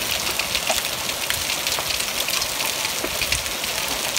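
Pea-sized hail coming down heavily, a dense steady patter of countless small hailstones striking surfaces.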